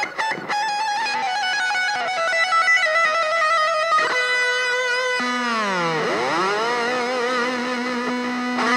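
Music: an electric guitar playing long held notes with vibrato; about five seconds in, a note swoops down and back up.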